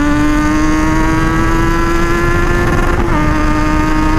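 Kawasaki Z900's inline-four engine, on a full-system aftermarket exhaust, pulling hard at high speed. Its pitch climbs slowly, drops a step about three seconds in at an upshift, then climbs again. Heavy wind rush is on the microphone.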